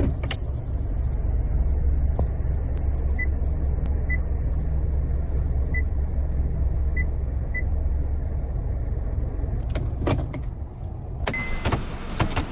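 Honda car engine idling inside the cabin, a steady low hum. Five short, high electronic beeps come at uneven intervals, then a couple of clicks, and a longer beep near the end.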